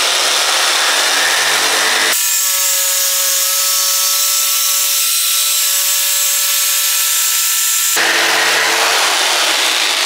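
Corded jigsaw running loud and steady as it cuts across a pine board. About two seconds in, the sound turns abruptly smoother, a whine with several clear steady tones, and it switches back to the rougher cutting sound about two seconds before the end.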